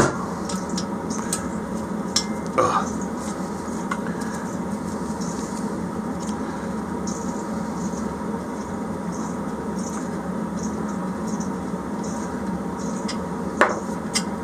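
Light metallic clicks and ticks of a T-handle hex key turning 4 mm Allen bolts out of a diesel heater's aluminium body, over a steady background hiss and hum.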